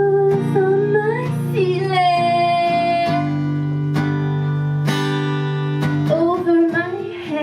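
Live blues: an acoustic guitar strummed in steady chords, with a woman's voice singing long, sliding held notes over it.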